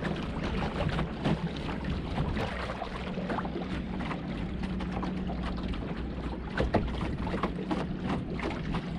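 Water lapping and slapping irregularly against the hull of a small sailboat under way, with wind buffeting the microphone.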